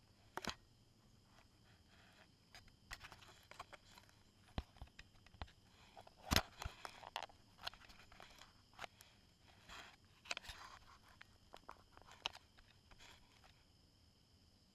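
Faint, irregular clicks, taps and rustles of fingers handling a GoPro camera, the sharpest tap about six seconds in.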